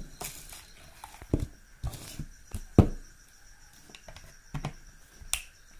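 Several scattered clicks and knocks of a USB cable and a plastic battery charger being handled and plugged into a phone charger adapter, the loudest about three seconds in.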